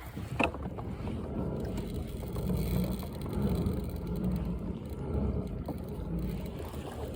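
Steady low rumbling noise of wind and water, with one sharp knock about half a second in.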